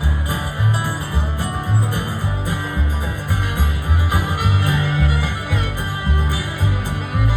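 Country band playing an instrumental passage between sung lines: plucked strings over a steady bass line that alternates between two notes, about two a second.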